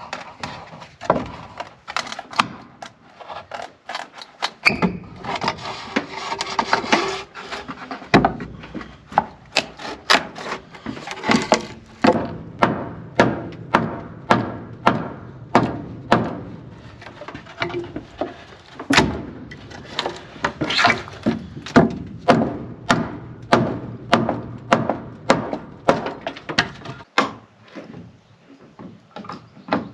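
Repeated knocks of a tool striking wood, settling into a steady series of about one blow a second through the middle and later part, with a short stretch of scraping or rubbing a few seconds in.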